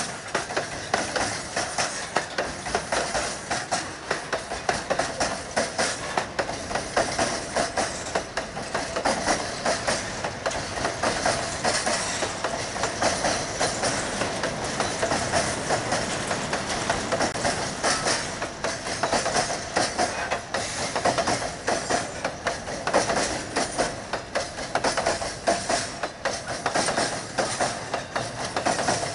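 Freight train wagons rolling past close by: a continuous noise of steel wheels on rail, with many rapid clicks and clacks as the wheels cross rail joints.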